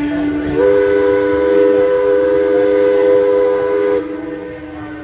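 Ships' whistles blowing: a steam tug's whistle holds one long steady note. About half a second in, a louder two-note whistle chord joins it and cuts off sharply at about four seconds.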